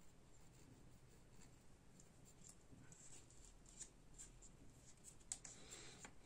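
Faint handling of a plastic graphics-card blower fan: scattered light clicks and rustles as it is turned over in the hands, a sharper click a little after five seconds and a brief rustle just before the end.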